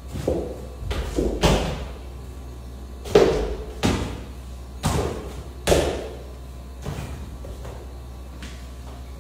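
Football kicked and bouncing off the walls and tiled floor of a bare room: about eight hard, irregularly spaced thuds with a short echo, the loudest a little after three seconds in.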